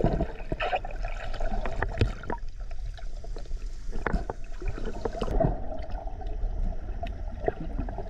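Muffled underwater water sound: gurgling and bubbling with scattered small clicks and knocks, picked up by a camera below the surface.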